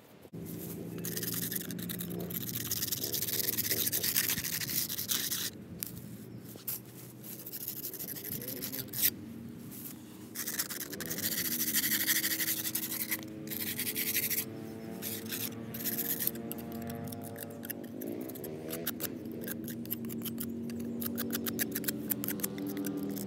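Irregular rubbing and scraping sounds in stretches of one to a few seconds, turning into rapid short strokes in the second half, over soft background music.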